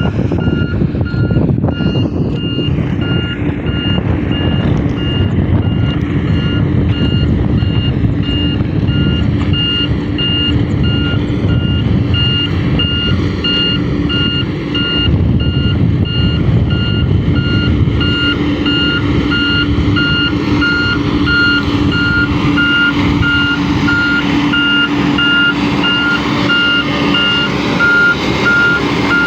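Heavy construction machine's reversing alarm beeping steadily at about two beeps a second, over the rumble of its diesel engine running.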